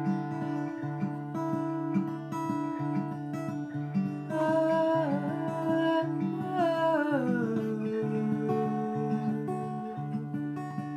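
Acoustic guitar strummed in a steady, repeating chord pattern. About four seconds in, a held note wavers and then slides down in pitch before settling.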